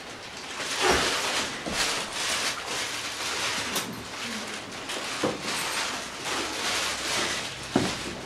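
Rustling and shuffling of people moving about close by, with one sharp click near the end.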